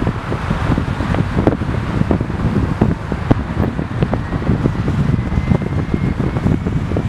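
Road and tyre noise from a moving car, with wind buffeting the microphone in dense low thumps. A faint thin whine rises slowly in the second half.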